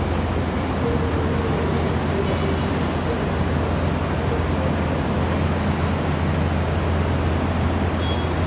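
Steady road traffic noise from a busy street of cars, with a constant low rumble.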